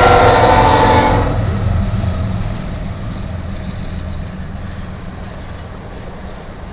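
Diesel locomotive horn ending its blast about a second in, followed by the steady low rumble and rolling noise of a fast BNSF intermodal freight train passing through a grade crossing.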